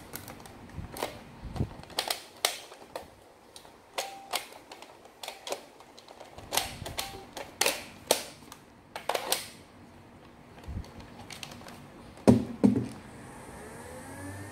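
Irregular plastic clicks as foam darts are pressed one by one into a Nerf clear clip magazine. Near the end come a couple of heavier knocks as the magazine is seated in a Nerf N-Strike Rapidstrike.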